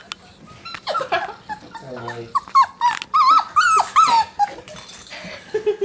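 Month-old gun dog puppies yipping and whimpering in a string of short, high squeaks, with a lower, steadier whine near the end.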